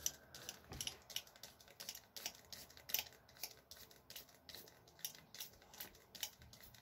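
Trigger-spray ear-irrigation bottle pumped over and over, each squeeze a short spritz of water into the ear canal, about three a second, flushing out impacted ear wax.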